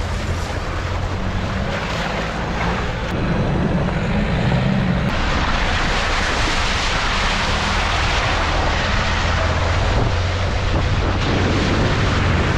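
Off-road vehicle driving, its engine droning steadily under a broad rush of road and tyre noise. The rushing hiss grows louder about five seconds in.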